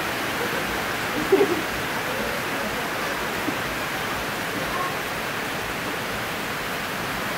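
A steady rushing noise, with one brief louder sound about a second and a half in.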